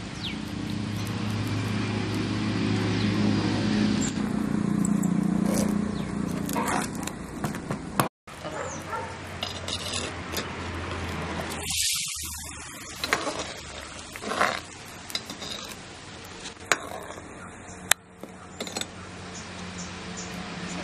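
Perforated metal ladle stirring a curry in a clay pot, with scattered light clinks and scrapes against the pot, over a low steady hum in the background.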